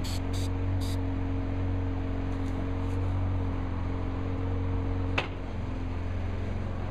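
Aerosol can of grey heat-resistant paint sprayed in three short hisses within the first second, with two fainter puffs about two and a half seconds in, over a steady low mechanical hum. A single sharp click about five seconds in.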